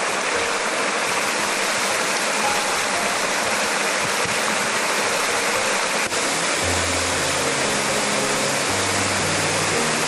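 Waterfall rushing steadily, a dense even hiss of falling water. Low sustained notes of background music join about two-thirds of the way in.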